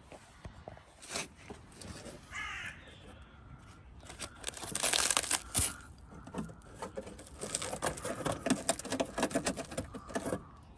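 Crackling, crunching and tearing as a rusted-out sill, patched with filler and fibreglass, is broken and picked away by hand. It comes in two spells, the louder one about four seconds in and a second from about seven and a half seconds to near the end.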